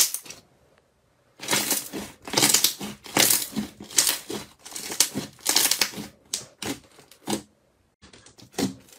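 Glossy slime being pressed, squeezed and kneaded by hand: a fast run of sticky squelches and crackling pops. It starts about a second and a half in and thins out near the end.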